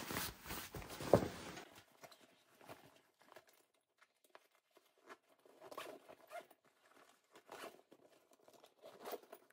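Faint rustling of a SwissGear 1900 backpack's fabric as its pockets and sleeves are handled, with scattered small clicks. A sharp tap about a second in is the loudest sound.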